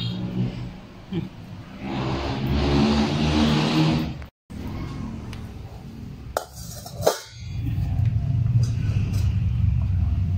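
A stainless steel dog bowl set down on a wooden floor with two sharp clinks, about six and a half and seven seconds in, over a loud, low steady hum.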